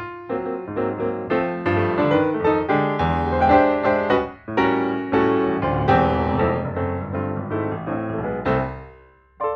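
Background piano music: a lively run of struck notes and chords with a brief break partway through, fading out near the end and closing on one last chord.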